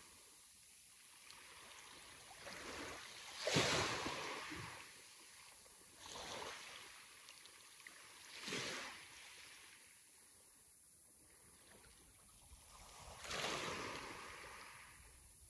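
Sea waves breaking and washing in, one surge after another every few seconds, the biggest about three and a half seconds in, with a softer wash between them.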